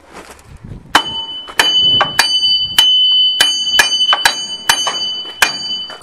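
Hammer blows on steel at a Case backhoe's rear axle: about nine sharp strikes starting about a second in, roughly one and a half a second, each ringing on after the hit. The part is being knocked out of the axle to get at a rear wheel bearing that had been seizing.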